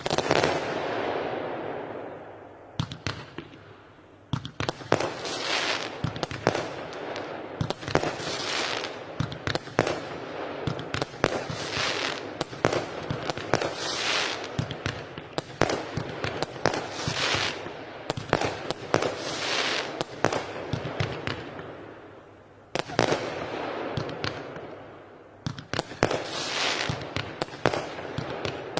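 Weco Time Machine consumer firework battery firing: a rapid run of sharp bangs, each followed by crackling, with short pauses near the start, about two-thirds in and near the end.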